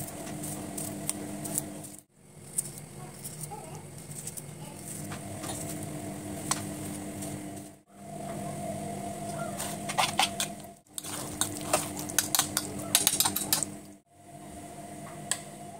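Knife slicing cucumber into a bowl and a spoon stirring and scraping raita, giving scattered clicks and taps over a steady low hum. The sound breaks off briefly three times.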